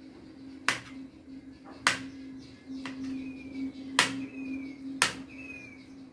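Kitchen knife slicing through boiled lentil-paste dhoka on a ceramic plate, the blade striking the plate with four sharp clicks, over a steady low hum.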